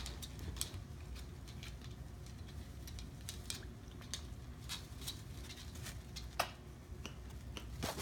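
Macaw's beak making a scatter of short, sharp clicks and crunches at irregular intervals, the loudest about six and a half seconds in, over a low steady hum.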